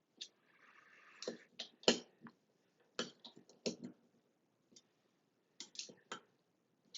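Scattered sharp clicks and taps of hand tools and screws against the metal faucet parts as the shower trim is tightened snug, about a dozen irregular clicks with a brief rustle about a second in.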